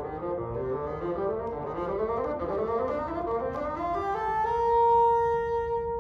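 Bassoon playing a quick rising run of notes that climbs to one long, high held note lasting about a second and a half, which stops just before the end.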